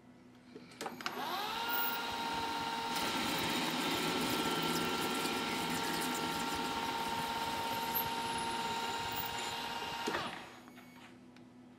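Milling machine spindle starting up with a rising whine that settles into a steady tone. From about 3 seconds a cutting tool takes a cut on the spinning metal ball, adding a dense hissing layer. The spindle winds down shortly before the end.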